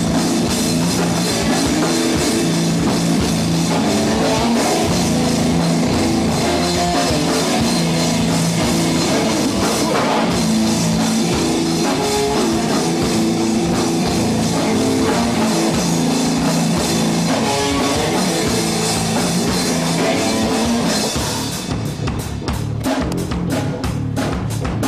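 Live nu-metal band playing an instrumental passage with no vocals: distorted electric guitars, bass and a drum kit. Near the end the full sound drops back to a fast, even beat.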